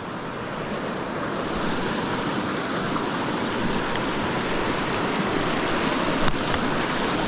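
River current rushing steadily, a constant hiss of flowing water that grows a little louder about a second in.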